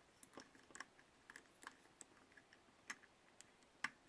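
Faint, irregular small clicks and ticks of tiny screws and a small screwdriver being worked into a drone camera's housing, one sharper click near the end.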